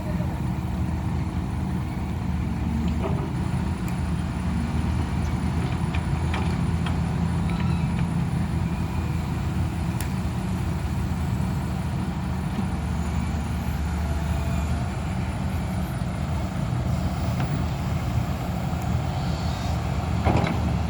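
Heavy diesel engine running steadily at a constant speed, with a few faint clicks over it.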